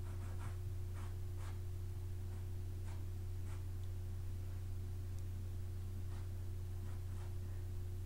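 Soft pastel stick scratching in short strokes across gritted La Carte pastel paper, the strokes coming in a run over the first few seconds and again sparsely near the end. A steady low hum runs underneath.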